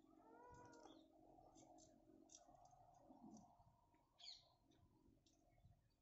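Near silence with faint background sounds: a faint pitched animal call that rises and falls near the start, a short high chirp about four seconds in, and scattered faint clicks.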